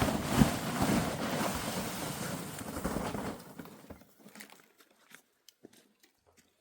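Wind buffeting the microphone in a heavy, rushing gust that cuts off abruptly about three and a half seconds in, leaving near quiet with a few faint scattered clicks.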